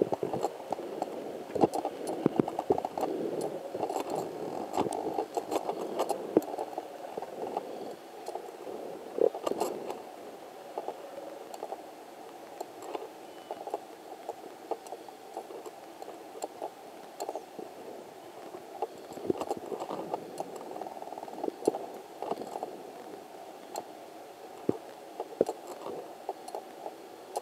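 Low-flying Eurocopter Tiger attack helicopter, a steady muffled rotor and engine drone with irregular crackles through it. It is louder for the first ten seconds, fades, then swells again about twenty seconds in.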